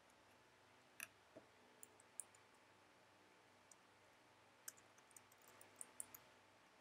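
Faint computer keyboard keystrokes over a quiet room: a few isolated clicks in the first couple of seconds, then a quicker run of clicks near the end.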